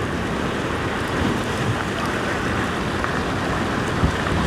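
Heavy ocean swell surging and washing against the rock ledge, a steady rushing surf noise.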